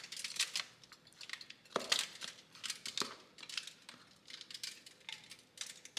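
A spatula scraping thick banana bread batter out of a bowl into a parchment-lined loaf pan, with the parchment paper crinkling: a string of short, irregular scrapes and rustles with a couple of sharper ticks.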